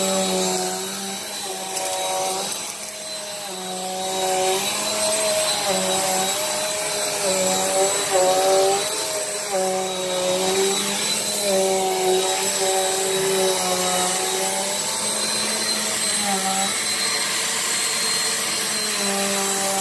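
Bissell PowerForce Compact upright vacuum running over carpet, its motor hum dipping and rising in pitch every second or two as it is pushed back and forth through a mess of dirt and debris. A steady high whine runs along with it.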